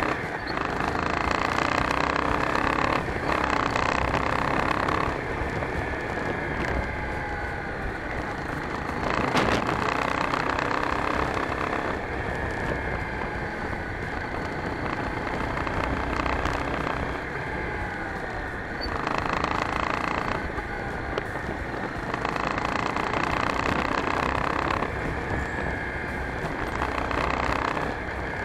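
Motorcycle riding on a town street, heard through a handlebar-mounted action camera: the engine note rises and falls with speed over steady wind and road noise.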